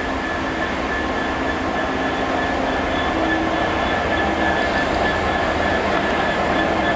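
Freightliner Class 66 diesel locomotive with its two-stroke EMD V12 engine running as it hauls a freight train past, growing slightly louder as it comes closer, with a steady high whine over the engine and wheel noise.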